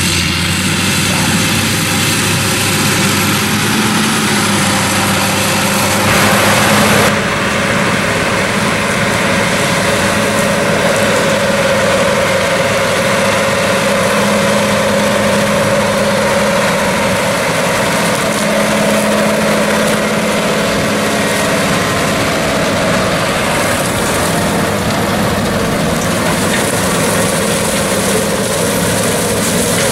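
International 5288 tractor's turbocharged six-cylinder diesel running steadily under load as it pulls a Vermeer 605M round baler baling cornstalks. A brief louder rush of noise comes about six seconds in.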